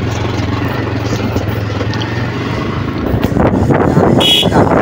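Motorcycle engine running with a steady low hum, growing louder from about three seconds in as the bike gets moving. A short high beep, a horn toot, sounds about four seconds in.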